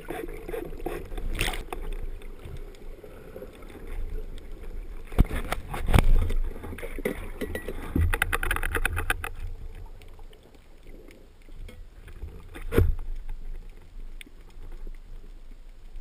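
Rough sea heard underwater through a diver's camera: a steady low rumble of surging water, broken by scattered sharp knocks and clicks, with a rapid run of clicks about eight seconds in.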